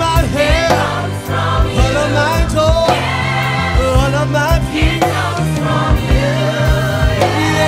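Gospel choir singing over a band, with a steady bass line and drum beat.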